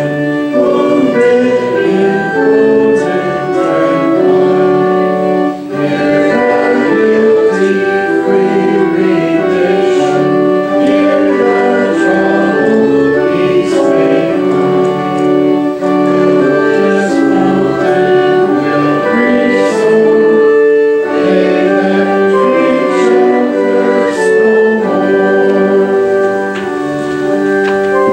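Church congregation singing a hymn with organ accompaniment, held notes moving from chord to chord.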